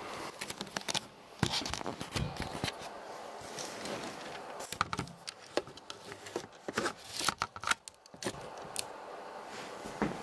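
Handling noises of someone moving about in a small room with a wooden floor and setting up camera gear: irregular clicks, knocks, scrapes and rustles.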